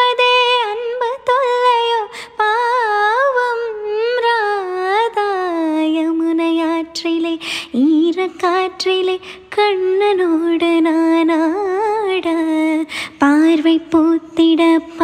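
A woman singing solo without accompaniment, a single voice with a wavering, sliding, ornamented melody that settles lower about halfway through.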